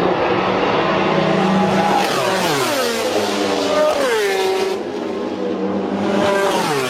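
MotoGP racing motorcycles running at full throttle. Their four-cylinder engines wail in high harmonics, and the engine note drops sharply three times as bikes go by.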